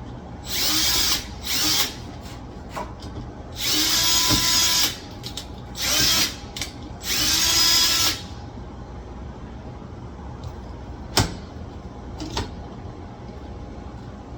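Power drill driving the long screws that hold a door lock's exterior knob, run in five short bursts that spin up in pitch over the first eight seconds. A single sharp knock comes near the end.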